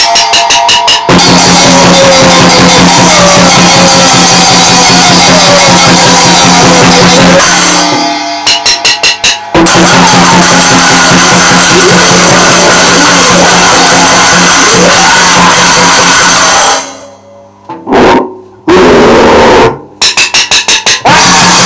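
Raw noisecore: a heavily distorted, clipping wall of noise over drums. Quick runs of evenly spaced drum hits break through about a second in, at eight seconds and near the end. The noise drops out almost entirely for a couple of seconds about seventeen seconds in.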